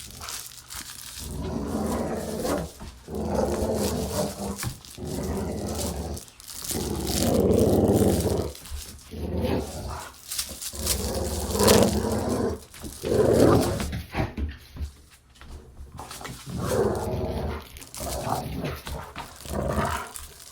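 A dog growling in play: a series of growls, each a second or two long, with short breaks between.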